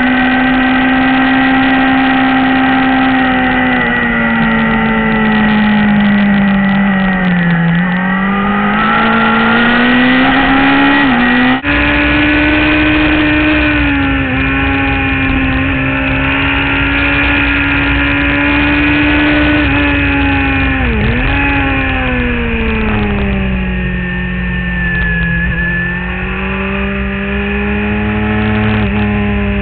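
Suzuki GSX-R sportbike's inline-four engine running at high revs under hard track riding, with a steady rush of wind. The revs sag and climb back several times as the bike slows for corners and drives out, with a brief break in the engine note about a third of the way in.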